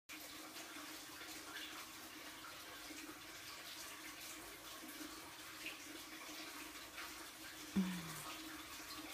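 Faint, soft clicks of two rabbits chewing and tearing leafy greens over a steady low hiss. Near the end there is one sharp tap, followed by a short low hum.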